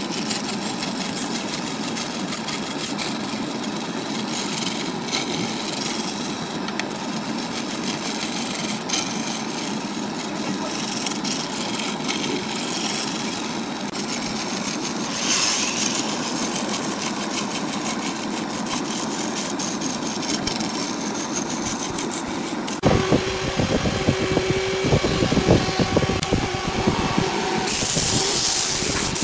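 Wood lathe running while a turning tool cuts a spinning segmented wood blank, throwing off shavings in a steady rough scraping. The sound changes abruptly about 23 s in. Near the end, sandpaper hisses against the spinning wood.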